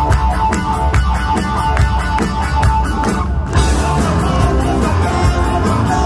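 A garage-rock band playing loudly on stage, with electric guitars and drums. The music stops briefly about halfway, then the band comes back in.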